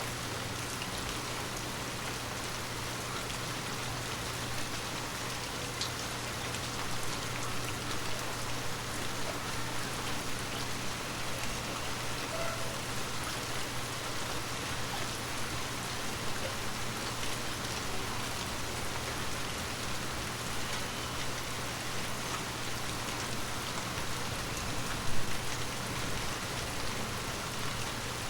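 Steady rain falling on forest leaves, a dense even patter, with one louder drop striking near the end.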